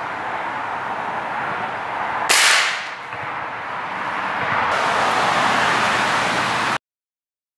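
A single gunshot about two seconds in, sharp and dying away within about half a second, over a steady noisy background. The sound cuts out suddenly near the end.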